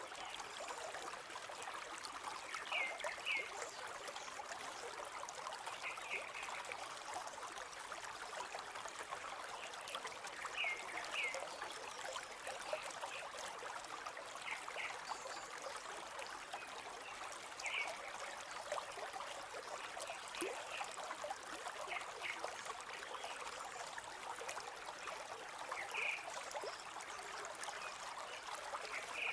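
A river flowing steadily, an even rushing and trickling of water, with short high-pitched sounds every few seconds.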